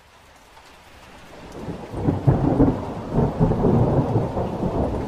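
Rolling thunder with rain: a low, crackling rumble that swells in over the first two seconds and keeps rolling.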